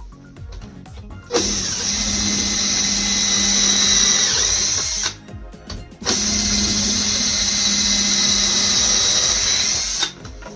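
Electric drill running in two steady runs of about four seconds each, with a short pause between. Its whine dips briefly in pitch partway through the first run.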